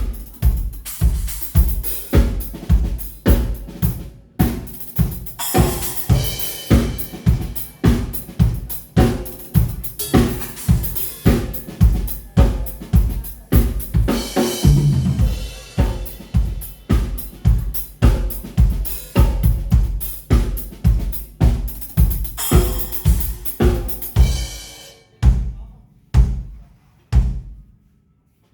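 Drum kit played in a steady groove, kick and snare on a strong beat about twice a second, with hi-hat and cymbal crashes. There is a short fill about halfway through, and near the end the groove breaks into a few spaced-out hits.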